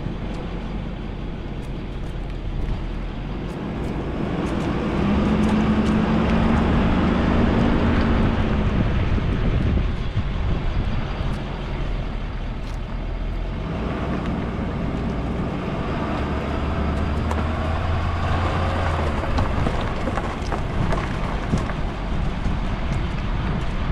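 Motor vehicle engine running steadily under a rushing wind-like noise, growing louder about four seconds in.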